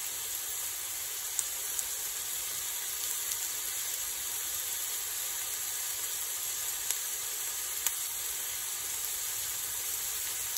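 Diced onions and carrots frying in coconut oil in a Dutch oven: a steady, high hiss of sizzling with a few small pops, a sign the vegetables are cooking.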